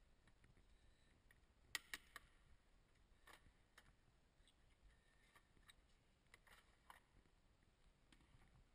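Near silence broken by a few faint clicks and taps, the sharpest two close together about two seconds in: a screwdriver prying at the plastic air intake duct and its harness clips in the engine bay.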